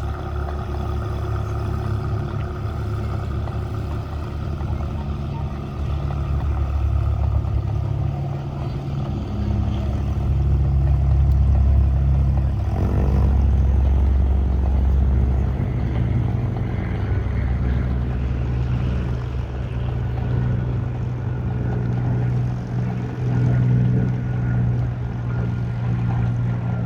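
Propeller aircraft piston engines running steadily, a deep drone whose level and pitch rise and shift a few times.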